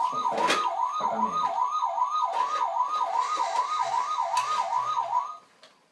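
Electronic toy siren from a battery-powered toy vehicle, a fast up-and-down wail repeating about three times a second, cutting off about five and a half seconds in.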